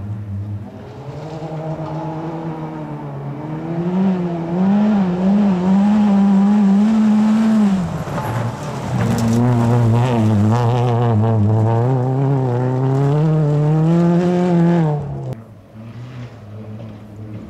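Ford Fiesta rally car's engine driven hard on a gravel stage: it comes closer with the revs rising and falling through the gears, eases off briefly as it passes close by, then accelerates away with the revs climbing until the sound drops off suddenly. Another rally car's engine is heard faintly near the end.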